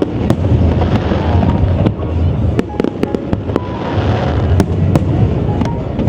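Aerial fireworks display going off in rapid succession: a continuous low rumble of shell bursts with many sharp cracks and waves of crackling.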